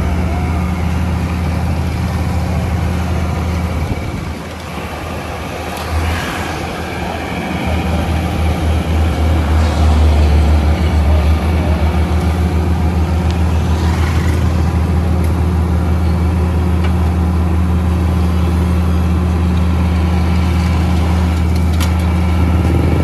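Diesel engine of a Niigata NFB6C asphalt paver running steadily, dropping briefly about four seconds in, then getting louder from about eight seconds in and holding there.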